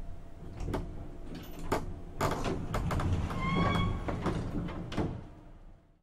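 Elevator coming to a stop and its doors sliding, with a series of sharp clanks and knocks over a low rumble and a brief high ringing tone about three and a half seconds in. The sound fades out near the end.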